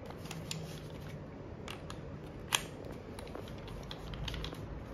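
Keyless chuck of a Bosch GSR 120-LI cordless drill being twisted by hand to clamp a bit holder, with scattered light clicks and one sharper click about halfway through.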